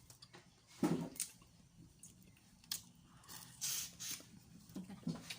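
Close-miked eating sounds of boiled seafood: a wet squish and knock about a second in, a few sharp clicks, and a short hissing slurp between three and four seconds in.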